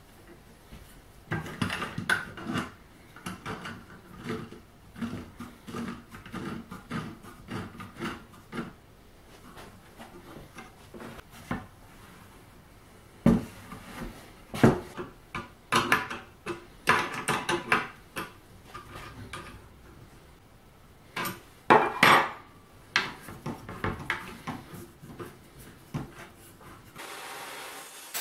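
Handling knocks and scrapes of a square wooden blank and a plywood jig, with metal clicks from the jig's threaded rods and wing nuts, as the blank is clamped in and the jig is set down on a table saw. The knocks come in irregular clusters with two short lulls.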